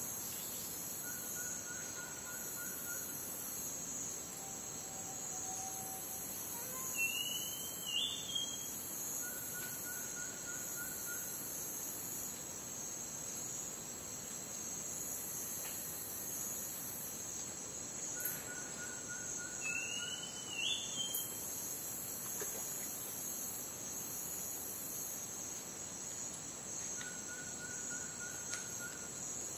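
Rainforest night ambience: a dense, high-pitched chorus of crickets and other insects. A still higher insect layer switches on and off every few seconds. Over it, a short run of about six quick, even notes repeats roughly every eight or nine seconds, and a rising chirping call sounds twice.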